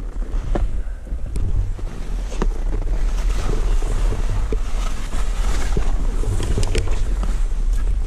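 Skis hissing through deep powder snow while wind rushes and rumbles on a body-worn action camera's microphone, with a few sharp knocks along the way.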